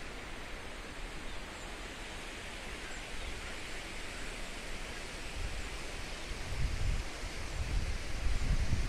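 Steady outdoor rushing hiss, with wind gusts buffeting the microphone as irregular low rumbles that grow louder in the last few seconds.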